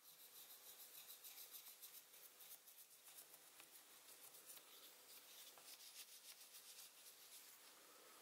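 Faint, quick scratching of a graphite pencil shading over paper laid on a coin, making a coin rubbing; the strokes stop near the end.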